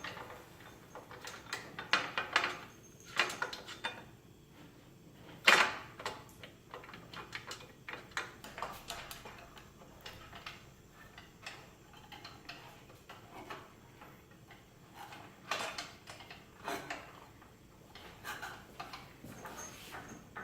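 Scattered metallic clicks and knocks of bolts and locking nuts being handled and fitted to a load cell mounting bracket, with one louder knock about five and a half seconds in.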